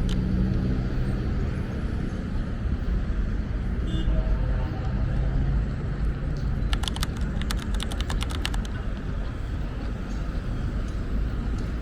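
Street traffic: a vehicle engine hums steadily over a low rumble of traffic, then fades after about four seconds. A little after halfway comes a quick run of sharp clicks or taps lasting a second or two.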